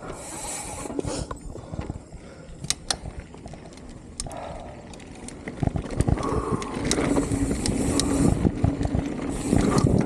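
Salsa Cassidy full-suspension mountain bike ridden down a trail: tyre rumble on dirt with many sharp clacks and rattles from the bike over bumps. It gets louder about halfway through, as the bike picks up speed or hits rougher ground.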